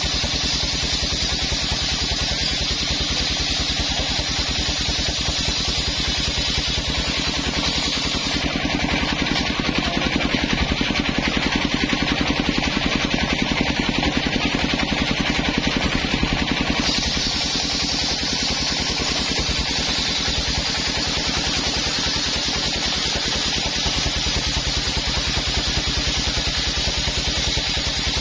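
Engine-driven homemade circular table saw running steadily while coconut-wood planks are ripped along its blade. An even engine beat sits under the noise of the blade in the wood. The cutting sound changes between about 8 and 17 seconds in.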